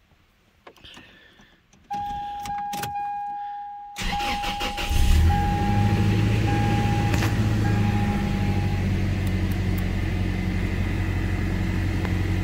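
A dashboard warning chime sounds, first held, then pulsing, as the key is turned. The 2001 Toyota Tacoma's 2.7-litre 3RZ-FE four-cylinder cranks about four seconds in, catches about a second later and settles into a steady idle: the first start after a head gasket replacement.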